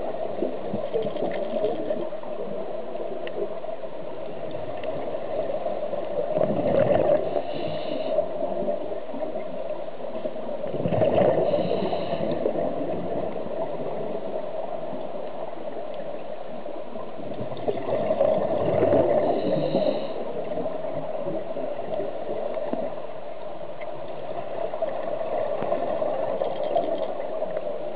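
Scuba diver's regulator breathing recorded underwater: exhaled bubbles gurgling up in louder swells three times, several seconds apart, over a steady underwater hum.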